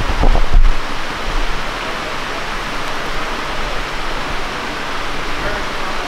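Steady rushing noise, with low rumbling in the first second.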